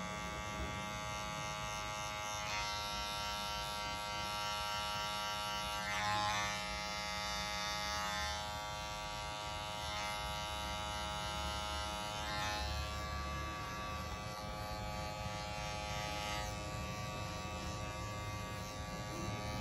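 Electric hair clipper buzzing steadily as it trims hair around the ear, its tone shifting slightly a few times.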